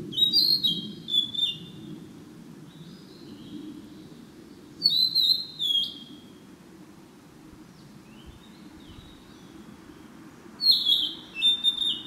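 Flycatcher song: three loud phrases of clear whistled notes stepping down in pitch, near the start, about five seconds in and near the end, with fainter phrases between them over a low steady background rumble.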